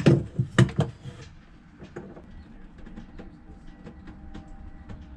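A quick run of sharp clicks and knocks in the first second, then a few light ticks: a caulking gun and a bronze seacock fitting being handled while sealant goes onto a new thru-hull.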